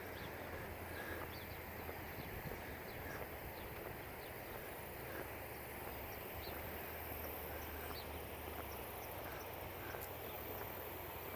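Small birds chirping here and there, short high notes, over a steady outdoor background hum.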